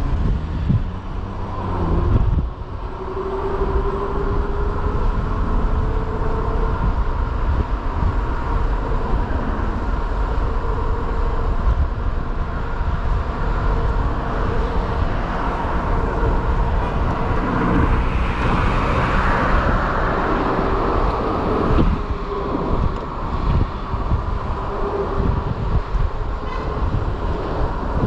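Wind buffeting the microphone and steady city traffic noise from a moving electric moped, with a faint steady whine underneath. Traffic noise swells briefly about two-thirds of the way through, as a vehicle goes past close by.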